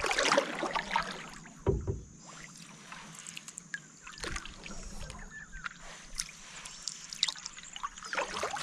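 A canoe being paddled on calm water: irregular paddle strokes swishing through the water, with scattered small clicks and drips between them.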